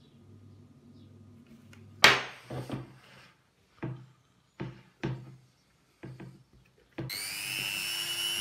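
A sharp knock, then a few lighter knocks and taps as a metal anode rod is handled against a plastic tub. Near the end a small power drill starts up with a steady high whine, drilling holes in the tub's plastic side.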